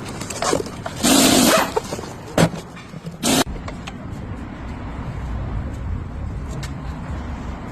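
Car noise: a few short, loud bursts in the first three seconds, then a steady low rumble.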